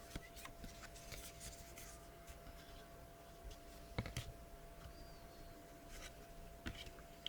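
Trading cards and pack wrappers being handled: faint sliding, scratching and rustling with scattered small clicks, one sharper click about four seconds in.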